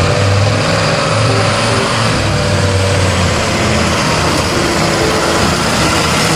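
A large vehicle's engine, taken to be a bus's, running steadily: a low hum under a broad rushing noise. The hum is strongest in the first half.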